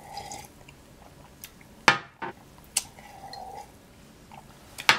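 Close-miked sips and swallows of cherry cola from a glass, with a few sharp wet gulp clicks, the loudest about two seconds in and another just before the end.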